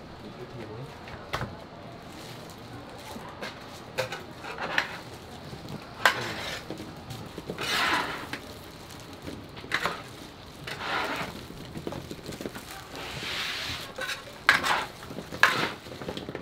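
Scattered clinks and knocks of metal tongs against a steel tray as cut pieces of crisp puffed-grain snack bar are picked up and moved. In between come short bursts of rustling.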